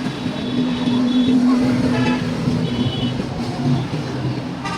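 A motor vehicle running amid road traffic noise, with a steady low hum that is loudest over the first two seconds.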